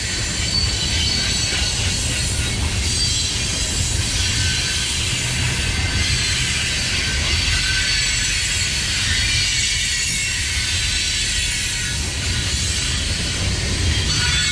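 Freight train of open-top hopper cars rolling past: a steady rumble of wheels on the rails, with a continuous high-pitched squeal from the wheels.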